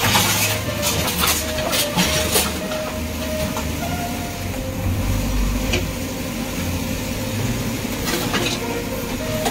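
JCB backhoe loader's diesel engine running under load as its arm pushes over a wooden and corrugated-sheet shed, with cracks and crashes of breaking timber and sheet metal, most of them in the first two or three seconds.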